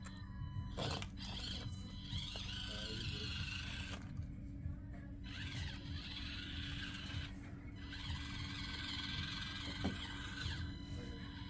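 Small electric drive motor and gears of an Axial AX24 XC-1 1/24-scale crawler whining, rising and falling in pitch as it crawls, and cutting out briefly twice. A steady low hum lies underneath.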